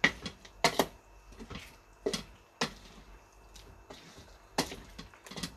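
Cookware being handled: about six sharp knocks and clacks of utensils against a cooking pot, coming at uneven intervals.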